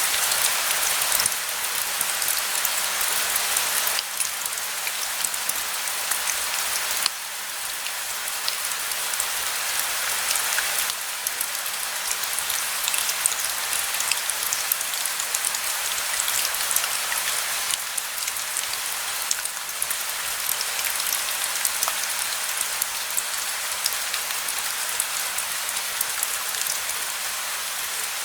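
Steady rain: a dense, even hiss with individual drops ticking through it. The overall level shifts abruptly a few times, in the first ten seconds or so.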